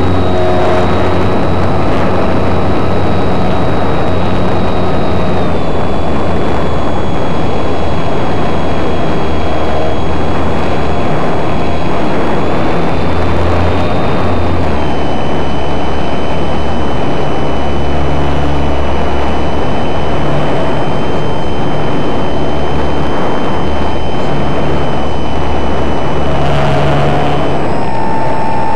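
RC plane's motor and propeller whining steadily in flight under heavy rushing air noise. The pitch steps down twice as the throttle is eased, then rises again near the end.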